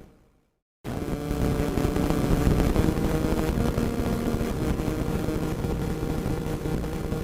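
Radio static: a steady hiss and crackle with faint steady tones running through it. It dies away at the very start, drops out to silence for under a second, then cuts back in abruptly and carries on.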